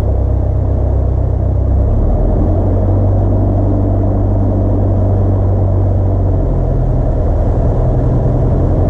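Single-engine light aircraft's piston engine and propeller running, heard inside the cockpit. The engine note steps up about two seconds in and shifts again later as the power changes during taxi.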